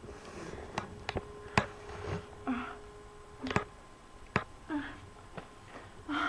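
A frightened woman's shaky breaths and whimpering gasps, coming every second or so, with the strongest one near the end. Several sharp clicks or knocks come in between.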